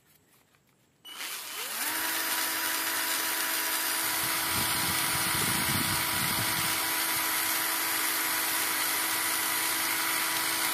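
Buildskill cordless screwdriver's electric motor starting about a second in, its whine rising as it spins up, then running steadily with the chuck turning freely at no load.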